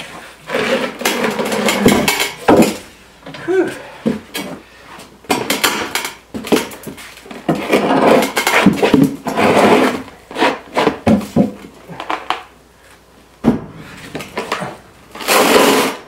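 A heavy concrete countertop slab scraping and knocking as it is slid and shifted across an OSB board on the floor, in irregular bursts of scrapes and clunks with quieter gaps.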